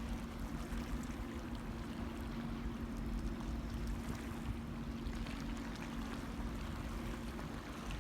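Car ferry's engines running with a steady, even-pitched hum as the ship comes in to berth, over a constant rushing of wind and water.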